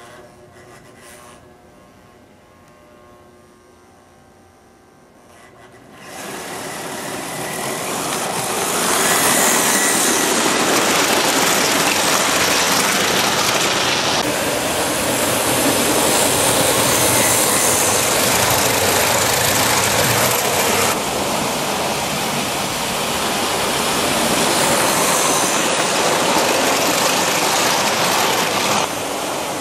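American Flyer S-gauge Silver Flash model diesel train running on the layout track, its motor and wheels making a loud, steady rattling run. The noise starts suddenly about six seconds in, after a quiet stretch with only a faint hum, and holds steady as the train comes past.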